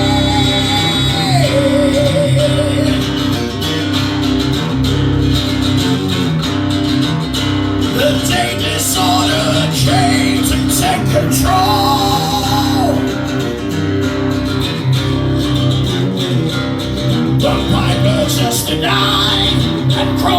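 Loud live music: amplified guitar with a voice singing in held, bending notes over a dense, steady backing.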